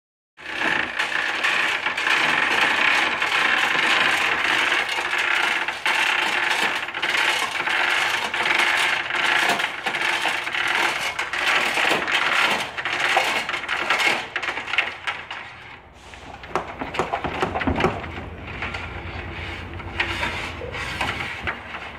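Steel chain of a chain hoist clinking and rattling in quick, irregular clicks as it is worked to lift the car's engine. The clicking thins out after about 15 seconds, leaving a low hum under a few scattered clicks.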